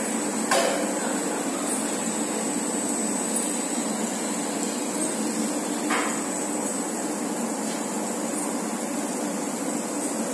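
Steady running noise of an automated big-bag packaging line as a filled bulk bag on a roller conveyor is wrapped in stretch film, with two sharp knocks: one about half a second in, one about six seconds in.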